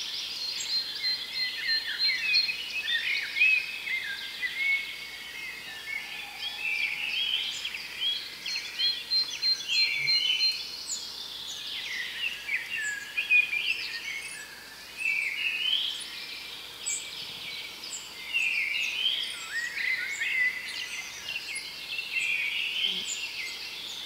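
Several songbirds singing over one another in a dense chorus of varied chirps, whistles and sweeping phrases. A fast run of repeated high notes comes twice, near the start and again about eight seconds in.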